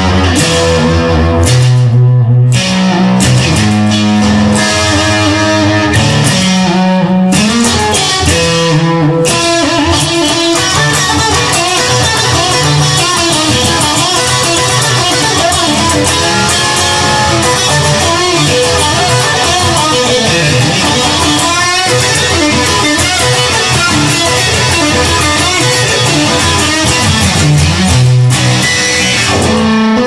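Electric guitar music: slower, held notes at first, then a dense, fast run of notes from about ten seconds in.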